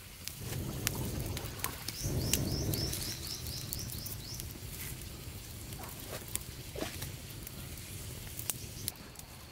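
Rustling and handling noises with scattered sharp clicks and snaps, and a quick run of about ten high chirps from a bird about two seconds in.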